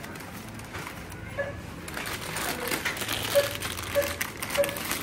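Plastic carrier bag and snack packaging crinkling as shopping is lifted off a self-checkout bagging area, starting about two seconds in. Three short beeps about half a second apart come near the middle.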